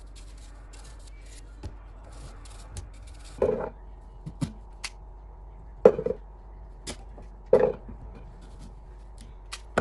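A knife scraping the peel off a raw potato in quick short strokes. After about three seconds this gives way to a knife cutting the peeled potato on a wooden chopping board: light slicing ticks and four solid knocks about two seconds apart.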